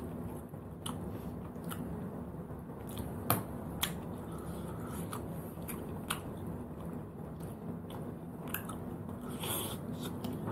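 Chewing, with scattered sharp clicks of sea snail shells and a toothpick against a plate as the snail meat is picked out and eaten. A steady low hum runs underneath.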